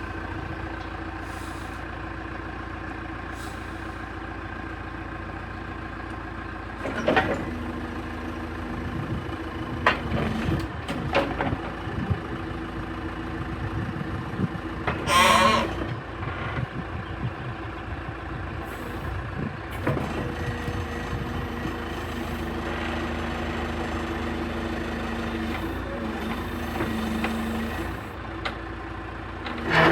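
John Deere 410G backhoe loader's diesel engine running steadily, with a few sharp knocks and one loud, brief noise about halfway through.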